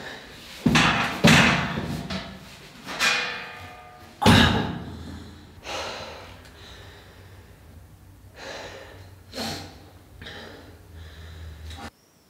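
A large flat board being carried and knocked against walls and doors: a series of loud knocks and scrapes, the loudest about four seconds in, with breathing between them. A low steady hum runs underneath and cuts off suddenly near the end.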